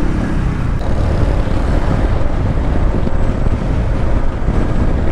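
Honda ADV160 single-cylinder scooter riding at about 70 km/h: a steady rush of wind buffeting the microphone over the engine and tyre noise.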